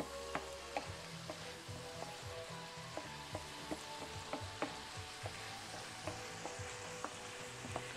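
Tomatoes sautéing in a pan of olive oil and balsamic vinegar: a steady sizzle with scattered sharp crackles, several each second.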